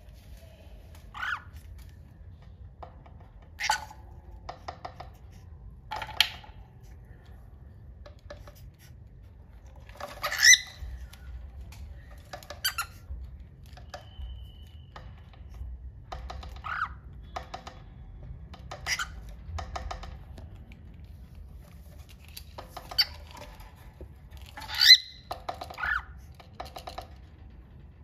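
Cockatiels giving short, sharp calls at irregular intervals, the loudest about ten seconds in and again near the end. Runs of quick ticks fall between the calls.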